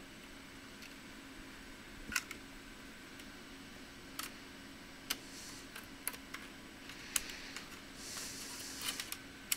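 Sharp, isolated clicks and light rustling from handling an opened laptop's plastic parts during disassembly, about seven clicks spread irregularly over faint steady hum.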